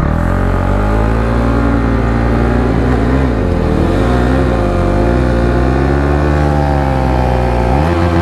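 KTM Duke 390 single-cylinder engine revved hard and held at high revs for a burnout in dirt. The revs dip and climb again several times in the middle.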